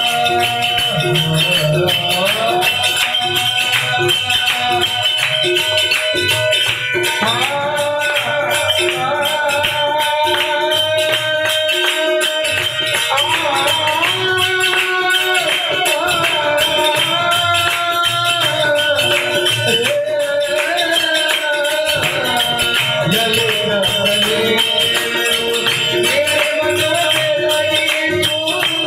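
Harmonium and tabla playing a devotional song, with a steady jingling percussion keeping the rhythm.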